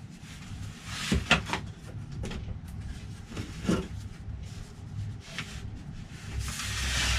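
Thin laser-cut plywood kit parts being handled and separated from their sheet: wood rubbing and scraping, with a few light clicks and knocks.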